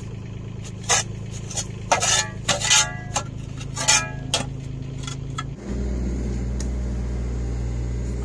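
A spade chopping and scraping into root-filled soil, about six sharp strokes, over the steady running of a mini excavator's engine. A little past halfway the excavator engine becomes louder and stays steady.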